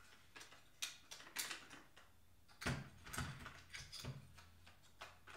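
Plastic battery holder compartment of a Bang & Olufsen Beolink 7000 remote being handled and worked apart. Irregular small clicks, taps and knocks of hard plastic parts.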